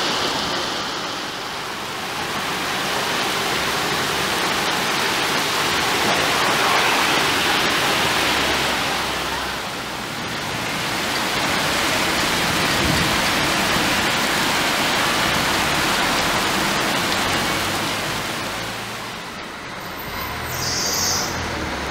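Heavy rain pouring onto a street and parked cars: a steady hiss of downpour with water running on the road. The loudness dips and swells a few times.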